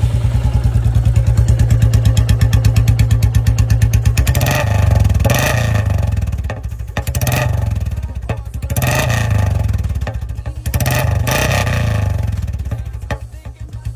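Royal Enfield Bullet single-cylinder motorcycle engine, fitted with an aftermarket exhaust bend pipe and dholki silencer, idling with rapid even thumps, then revved three times.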